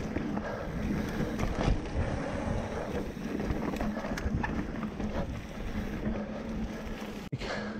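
Full-suspension mountain bike ridden fast over a bumpy dirt trail: wind buffeting the microphone, with scattered knocks and rattles from the bike and tyres over the ground.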